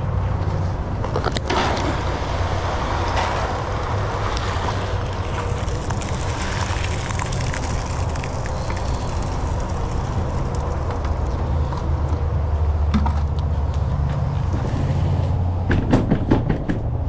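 Wet concrete mix being poured from a bucket into a fountain mold, a steady sliding, pouring noise over a constant low hum, with a quick run of knocks near the end.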